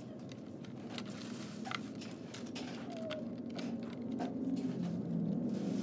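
Plastic LEGO bricks clicking and clattering in scattered sharp clicks as pieces are picked from a pile of loose bricks and pressed onto a baseplate, over a low steady background hum.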